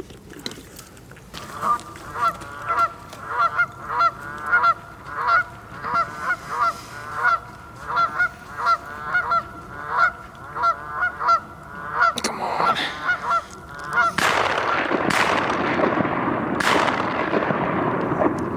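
Geese honking, a steady run of single honks at about two a second. For the last few seconds a loud rushing noise with a couple of sharp clicks takes over.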